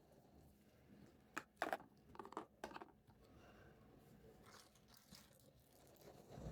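A few soft clicks and crinkles from small plastic toy pieces and their packaging being handled. They come bunched together between about one and a half and three seconds in, and the rest is near silence.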